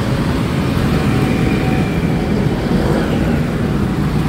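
Steady road traffic noise from motorbikes and cars, mostly a low rumble, heard from a moving bicycle.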